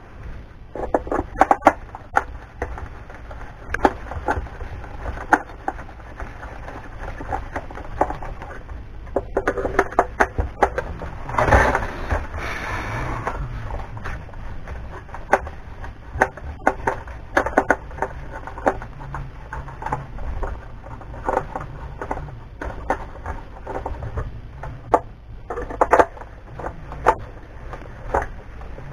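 Irregular clatter of plastic and metal scrap parts being handled and knocked about on a workbench while an appliance is taken apart by hand. About twelve seconds in, a louder, denser scraping rattle lasts a couple of seconds.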